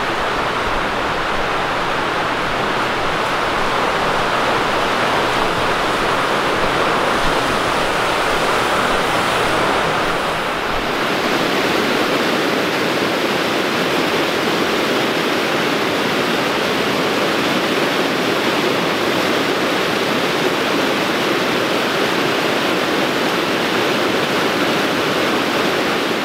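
A high-running rocky brook rushing over rapids and small cascades: a loud, steady wash of white water. A low rumble under it drops away about ten seconds in.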